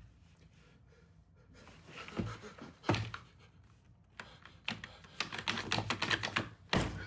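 Wall toggle light switches flicked over and over, a fast run of sharp clicks from about halfway on, with two louder knocks before it and a heavier knock near the end.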